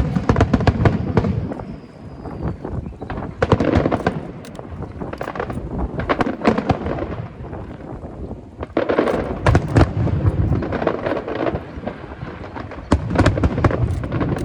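Aerial fireworks display going off: deep booming shell bursts come in clusters every few seconds, with dense rapid crackling between them.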